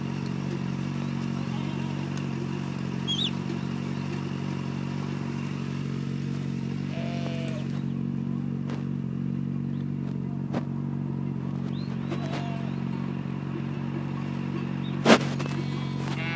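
BMW motorcycle engine idling steadily with the bike at a standstill. A few short sheep bleats come through over it, and a single sharp click stands out about fifteen seconds in.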